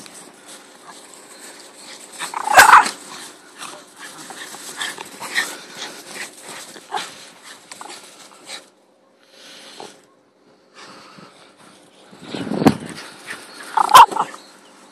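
Dogs playing in snow, with a loud short bark about three seconds in and another near the end, a dull thump just before the last, and quieter scuffling in between.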